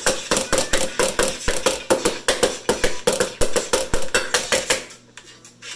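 Bottom of an upside-down metal muffin tin being tapped rapidly, about six knocks a second, each with a short metallic ring; it stops about a second before the end. The tapping is meant to knock the baked cupcakes loose, and they stay stuck in the cups.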